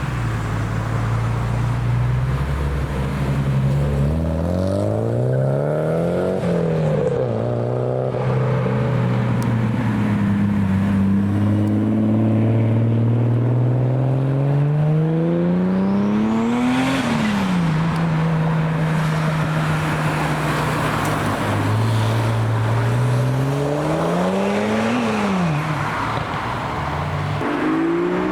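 Performance cars accelerating hard past one after another, each engine note climbing in pitch and then falling away sharply as it passes: about 6 seconds in, at about 17, and again near the end. Between the passes other engines run at a steady low note.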